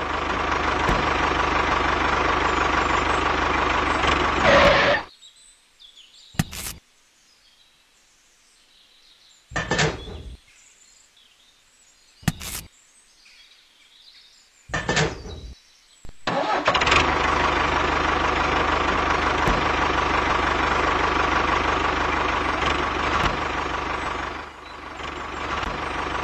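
Tractor engine running steadily, then stopping about five seconds in. A few short knocks sound in the near-quiet that follows. The engine runs again from about sixteen seconds in and fades near the end.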